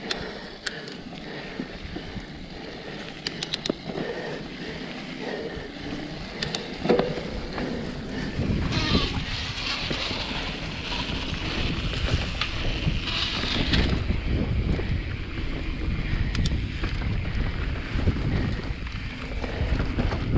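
Mountain bike riding singletrack: tyres rolling over dry leaves and packed dirt, with scattered clicks and rattles from the bike. From about eight seconds in it turns louder and rougher, with a low rumble of wind on the microphone.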